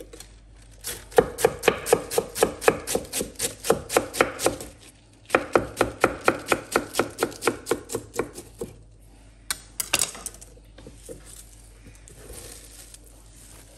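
Knife shredding green cabbage on a wooden chopping board: two runs of quick, even chops, about four or five a second, the blade knocking the board on each stroke. A few louder knocks follow, then softer rubbing as the shredded cabbage is gathered by hand.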